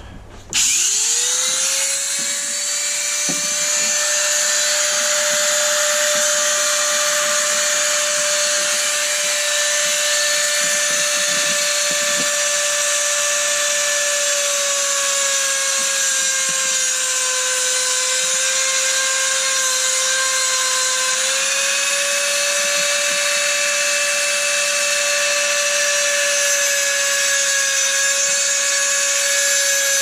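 Corded Dremel rotary tool with a round 80-grit silicon carbide tip, grinding a small piece of antler. The motor spins up with a quick rising whine about half a second in, then runs at a steady high pitch that sags a little for a few seconds past the middle before recovering.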